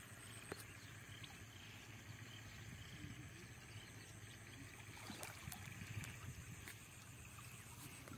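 Faint, quiet water sounds of a water buffalo wallowing almost submerged in a pond, with a few soft clicks and splashes.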